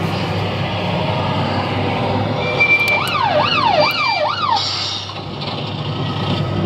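Amutec Emergency Rescue ambulance kiddie ride's electronic siren sound effect playing through the ride's speaker. A brief steady beep is followed by a fast wailing siren that rises and falls about four times, then stops, over steady background noise.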